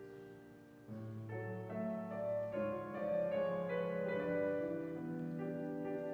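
Piano playing a slow, gentle passage of sustained chords, with a soft moment before new notes come in about a second in.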